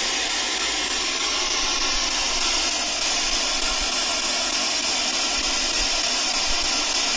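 Steady, even hiss that holds at one level throughout, brightest in the upper range, with no distinct sounds standing out of it.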